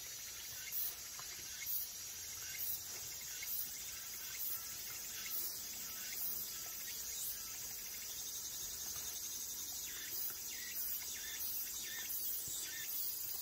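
Steady high-pitched drone of insects calling in the surrounding trees. Over it, a short soft sound repeats about once a second, fading after the first half.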